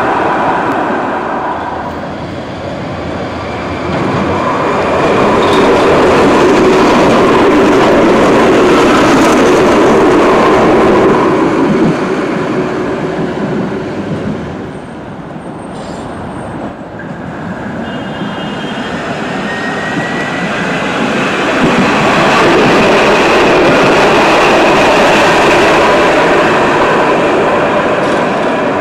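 Nottingham Express Transit electric trams, an Alstom Citadis 302 among them, running past the platform: a steady rumble of wheels on rail that swells as one tram goes by, fades, then swells again as a second tram passes. A few short high beeps come in the quieter gap between the two.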